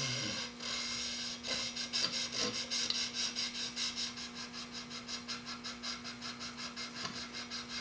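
Steel blade held in a sharpening jig being rubbed back and forth on a fine DMT diamond stone to hone the bevel: rhythmic rasping strokes, about three a second.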